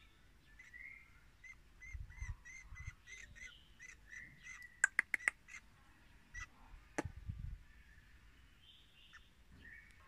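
Small crested songbird calling in a quick, even run of short repeated chirps, about three a second. Four sharp clicks about five seconds in and another about two seconds later are the loudest sounds.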